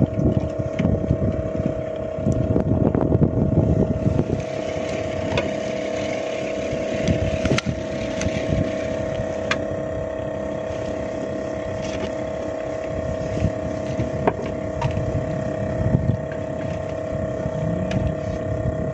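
A boat's engine running steadily, a constant drone with a low rumble beneath it. A few sharp clicks come through it.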